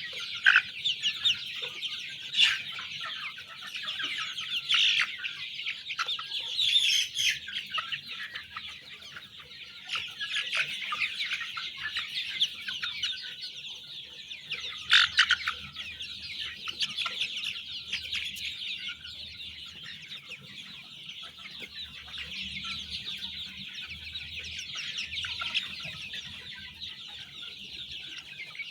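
A large flock of young chicks peeping all together, a dense high-pitched chorus of cheeps with a few louder individual calls standing out now and then.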